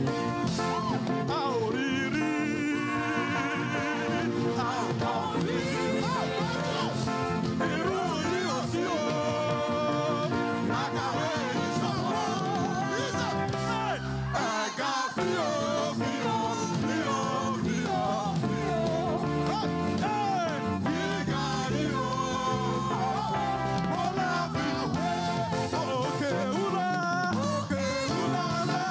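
Live Yoruba gospel praise music: a church band playing with voices singing over it. The bass drops out briefly about halfway through, then the music carries on.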